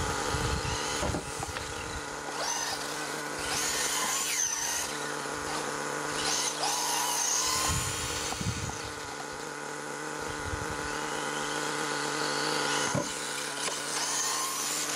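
HPI Savage XL 5.9's nitro engine running steadily on a stand during break-in, with a high, drill-like whine. Over it, another RC car's motor whines up and down in pitch as it drives about, a few times.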